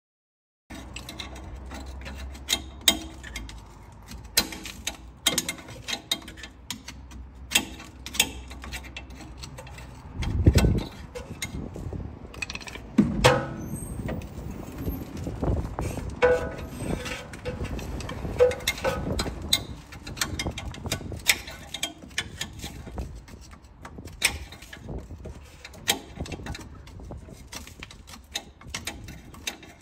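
Hand tools working on a car's rear shock absorber mounts: irregular metallic clicks and knocks, with a heavier thud about ten seconds in and another about thirteen seconds in.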